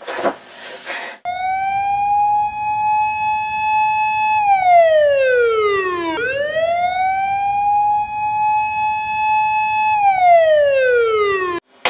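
Alert siren wailing twice, starting about a second in: each time it climbs to a steady high tone, holds it for about three seconds, then slides down in pitch. It cuts off just before the end.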